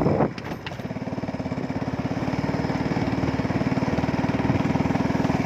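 A small engine running with a fast, even putter that grows slowly louder from about a second in.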